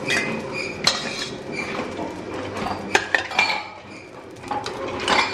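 Stainless steel ladle and utensils clinking against steel vessels while appam is being made: a batter pot, a plate and a small appam pan. There are a few sharp metallic clinks.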